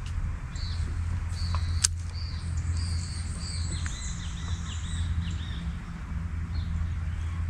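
Small birds chirping repeatedly in short falling notes, busiest between about one and a half and five seconds in, over a steady low rumble. One sharp click about two seconds in.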